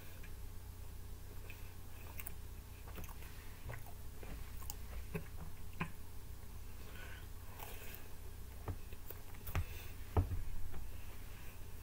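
A person chewing and biting pizza, with small scattered mouth clicks and smacks over a low steady hum. A couple of louder knocks come near the end.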